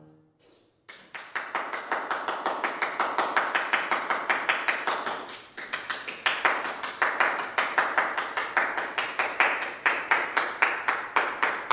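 Audience applauding, with individual claps easy to pick out, starting about a second in just after the trombone's last note has died away.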